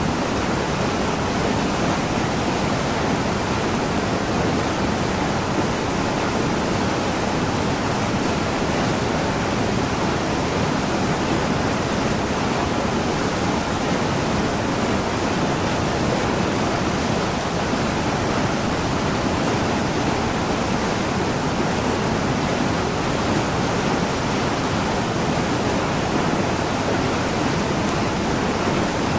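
Steady rushing of a small waterfall and mountain stream pouring over boulders, an even, unbroken water noise.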